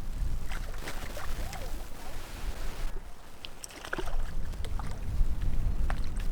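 Wind rumbling on the microphone, with light water splashing and scattered small clicks and knocks.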